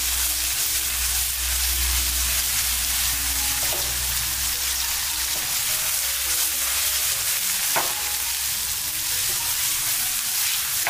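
Steady sizzle of minced garlic and scallion whites frying in hot oil among pan-fried tofu cubes in a clay pot, the aromatics being stir-fried until fragrant. A single light knock comes about eight seconds in.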